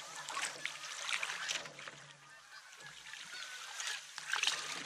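Canoe paddle splashing and dripping as it is drawn through river water, with a louder splash near the end, while birds call throughout.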